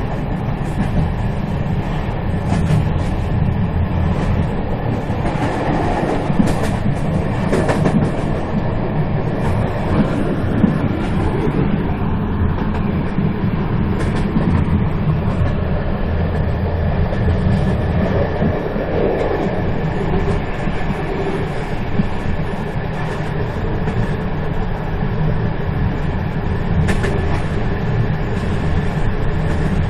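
A moving train running on its rails: a steady, dense low rumble, with a few sharp clicks scattered through it.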